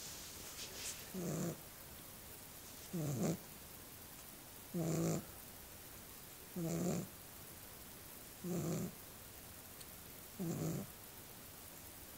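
Small dog snoring in a steady rhythm: six snores about two seconds apart, each about half a second long.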